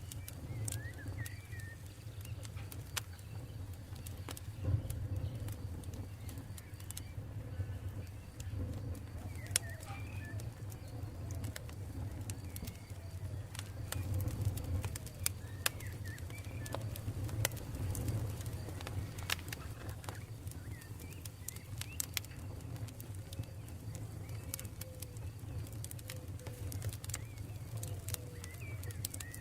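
Campfire crackling and popping, with many sharp irregular snaps over a steady low rumble of burning. Birds call faintly in the background.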